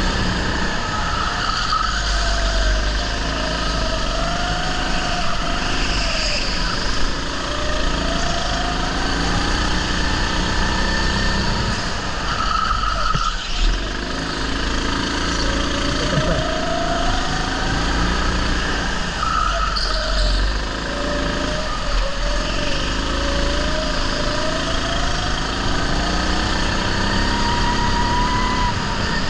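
Rental go-kart's small engine heard from on board, its pitch rising as it accelerates and falling back as it slows, over and over through the laps, with a steady low rumble underneath.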